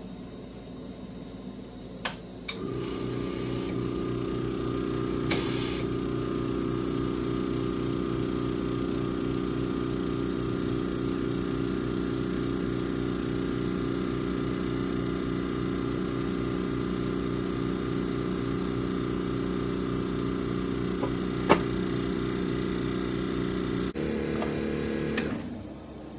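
A small electric motor starts after a couple of clicks, runs with a steady hum for about twenty seconds, briefly changes tone near the end and then winds down; a few sharp clicks along the way.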